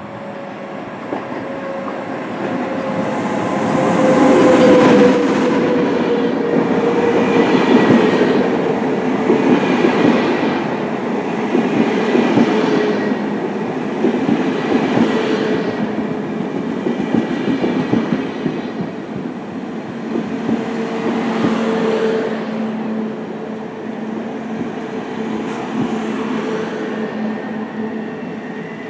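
A locomotive-hauled SBB electric train of double-deck coaches rolling past close by. It rumbles louder as it nears, then rattles in repeated swells as the coaches go by, with a faint whine that slowly falls in pitch.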